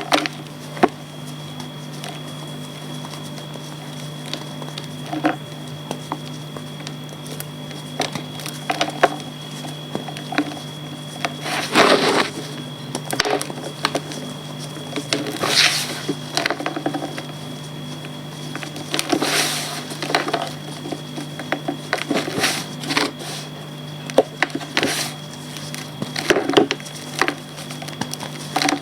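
Reformed gym chalk being crumbled and crushed: irregular crackles and crumbling, with a few louder crunches, over a steady low hum.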